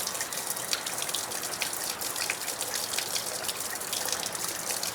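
Garden-hose water fed through flushing muffs into a 1979 55 hp Evinrude outboard, rushing and splashing out, with many small drips and splatters.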